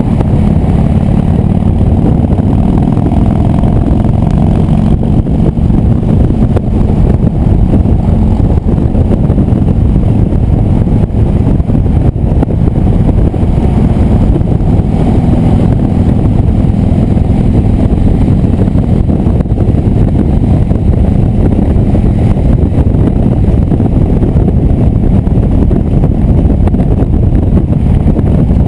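Motorcycle riding at freeway speed, recorded from the bike: a steady engine note under loud wind rush.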